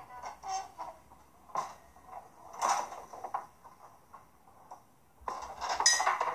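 Foosball table in play: rods sliding and spinning, the ball clacking against the figures and the table walls in scattered knocks, busier near the end.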